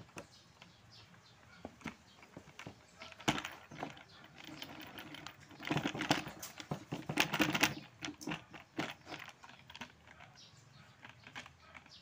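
Hard plastic and metal clicking and rattling as a washing machine's blue plastic basket is worked loose and pulled off its central metal shaft. There is a short burst of taps about three seconds in and a dense clatter from about five and a half to eight seconds in.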